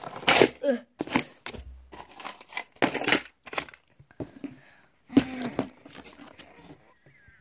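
Objects being packed by hand into a box: plastic crinkling and rustling with a string of short knocks and clatters.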